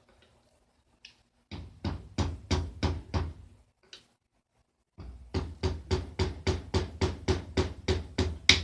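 Repeated knocking blows on the motorcycle engine during teardown, in two runs: about six strikes, a pause, then about a dozen more at roughly four a second, the last one the loudest.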